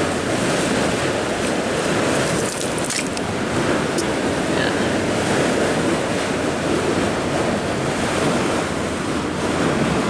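Steady rushing wash of river water on the shingle foreshore, with some wind on the microphone. A faint click or two of stones being moved.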